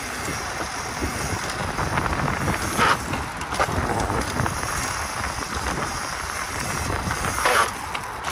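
Small electric dirt bike ridden over rough ground: wind buffeting the microphone over the rattle of the bike, with two sharp knocks, about three seconds in and near the end.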